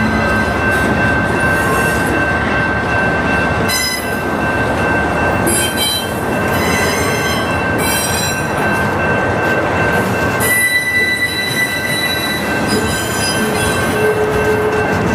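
Double-stack intermodal container train rolling past: a steady loud rumble of steel wheels on rail, with thin high-pitched wheel squeal held over it.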